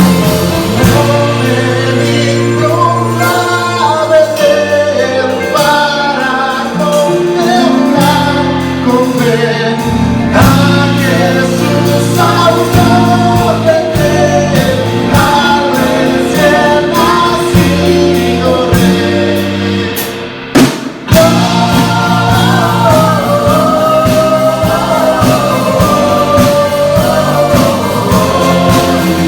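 Voices singing a Christmas carol with a church band of drums, guitar and bass behind them. The music breaks off for a moment about two-thirds of the way through, then goes on.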